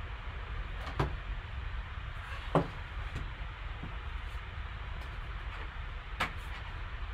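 A wooden card box's lid is lifted off and a cardboard insert is pulled out, giving three light knocks and scrapes over a steady hiss. The sharpest knock comes about two and a half seconds in.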